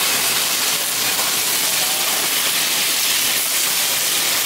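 Boneless chicken thigh skewers sizzling steadily on a hot flat-top teppanyaki griddle.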